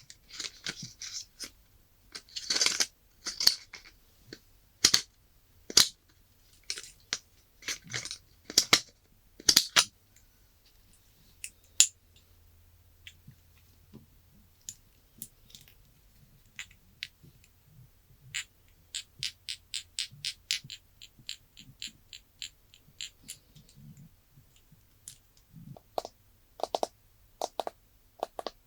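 Close-miked handling sounds from unboxing an iPhone 11: sharp taps, clicks and light rustles, dense in the first third and sparse after. About two-thirds of the way through comes a fast, even run of small clicks, like typing, at roughly five a second.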